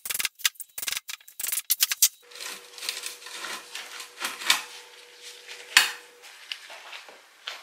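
Screwdriver prying at the steel wire-mesh element of a Land Rover Series oil bath air filter: a quick run of sharp metallic clicks and scrapes. Then comes a grating scrape as the mesh is worked free of the housing, with a loud metal knock near six seconds.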